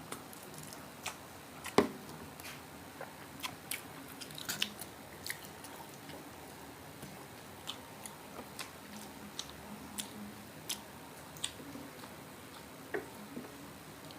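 Close-up eating sounds: biting and chewing crispy fried pork belly, with scattered sharp crunches and clicks, the loudest about two seconds in.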